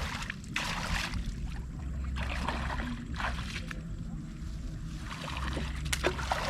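Water sloshing and splashing in a string of bursts about a second apart, over a low rumble that comes and goes.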